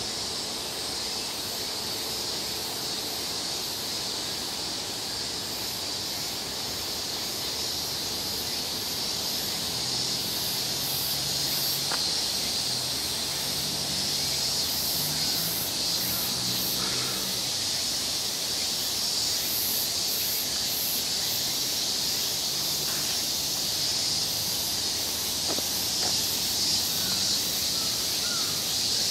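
Cicadas singing in a steady high-pitched chorus, with a faster pulsing shimmer above it.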